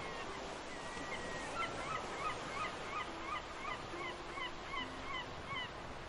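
A gull giving its long call: a held note about a second in, then a run of short, down-slurred calls repeated two to three times a second, over a steady hiss of wind and sea.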